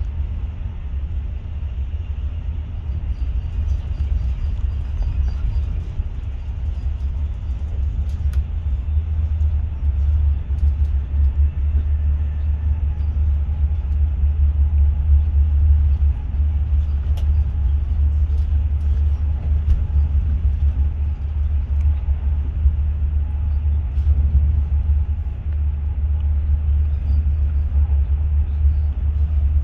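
Steady deep rumble of a Class 43 High Speed Train running along the track, with a few faint clicks.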